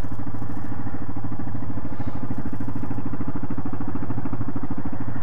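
ATV engine running steadily with a fast, even pulse.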